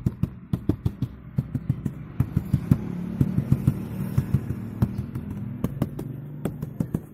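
Fingers tapping and knocking on the plastic A-pillar trim of a Honda Mobilio, several sharp irregular knocks a second, over a steady low hum. The knocks are a check of the left-side trim for the source of a dashboard rattle.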